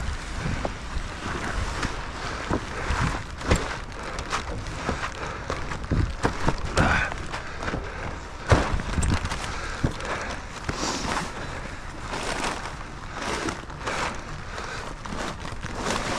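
A heavy black lumber tarp being unrolled and dragged by hand over a flatbed load: plastic rustling and flapping with scattered knocks and thuds, under wind and rain on the microphone.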